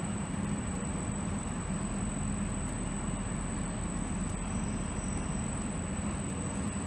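Steady rumbling background noise with a constant thin high-pitched whine, unchanging throughout.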